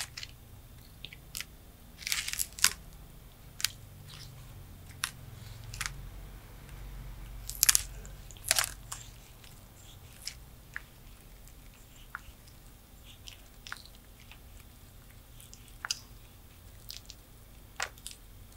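Tortoise biting and chewing food close up: irregular crisp crunches and snaps, with the loudest bites about two seconds in and again around eight seconds in, then softer, sparser chewing.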